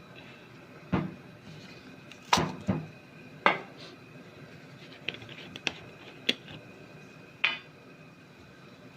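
A cooking utensil knocking and clinking against a pot of simmering curry, about eight sharp, irregular knocks, each with a short metallic ring.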